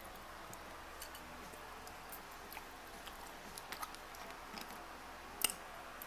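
Close-up chewing of a mouthful of food, with scattered small mouth clicks, and one sharper click about five and a half seconds in.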